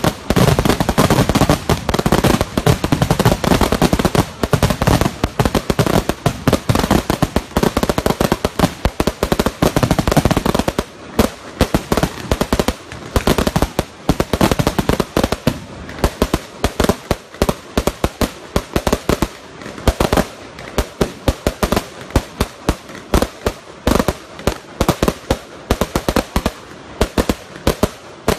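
Fireworks finale barrage: rapid, overlapping explosions with deep booms for about the first ten seconds, then a steady rattle of lighter, sharper cracks without the low booms for the rest.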